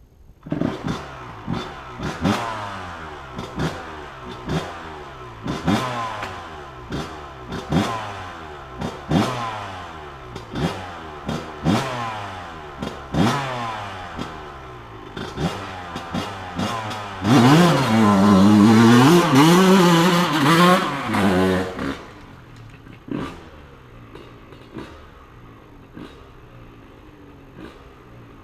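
Honda CR125R's single-cylinder two-stroke engine, through an FMF Fatty expansion chamber and TurbineCore 2 silencer, revved in quick throttle blips about once a second, each falling back in pitch. It is then held at high revs for about five seconds and drops to a loud idle with a couple of small blips near the end.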